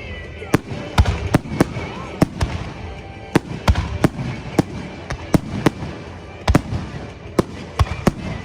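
Aerial fireworks shells bursting in quick succession, sharp bangs coming irregularly at a little over two a second.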